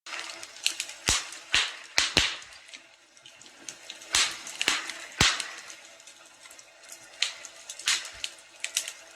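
Fire crackling in a fireplace: a steady crackle with irregular sharp pops and snaps, several close together near the start and again around the middle.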